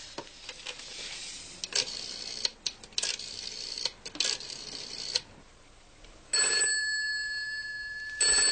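Telephone bell ringing: a first ring starts about six seconds in and a second begins near the end, before it is answered. Faint clicks and rustles come first.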